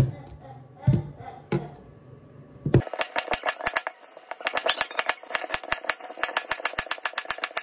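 A few separate knocks, then from about three seconds in a fast, even run of sharp clicks, about nine a second.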